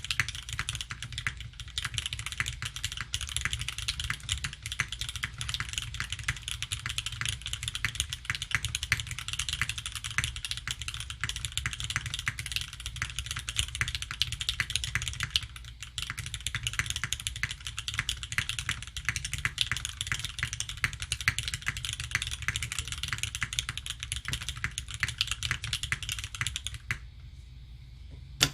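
Fast, continuous typing on a Sangeo60 custom mechanical keyboard with lubed Gateron CJ linear switches in an aluminium plate and GMK keycaps. There is a brief pause about halfway, and the typing stops shortly before the end.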